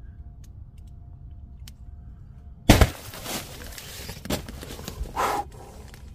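A sudden loud thump against the tent nearly three seconds in, then several shorter knocks and rustling scuffs, heard from inside the tent while something outside throws things at it.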